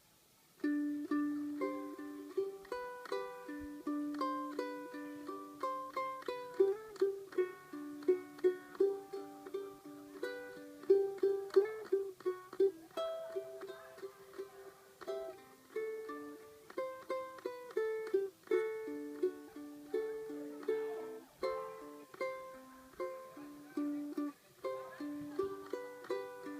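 Ukulele playing a plucked melody over chords, the notes starting about half a second in.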